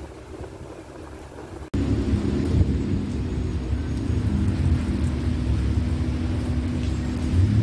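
Steady monsoon rain falling, with a heavy low rumble underneath. It jumps suddenly much louder about two seconds in.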